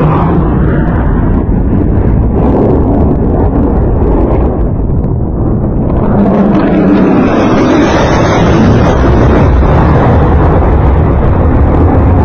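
Loud, continuous roar of an F-16 fighter jet's single turbofan engine as it passes low overhead, mixed with wind buffeting the microphone. The higher hiss in the roar fades for a few seconds in the middle, then swells back about six seconds in as the jet banks past again.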